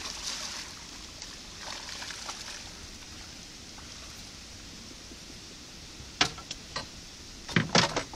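Steady rush of water pouring through a spillway, with hissy swells near the start and about two seconds in. Several sharp knocks and clicks come about six seconds in and again near the end, louder than the water.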